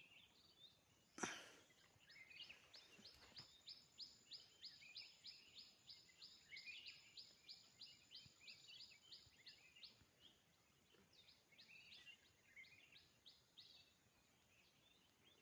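A bird calling faintly in a long run of quick, high, falling notes, about four a second, pausing briefly and starting again near the end. A sharp click about a second in is the loudest sound.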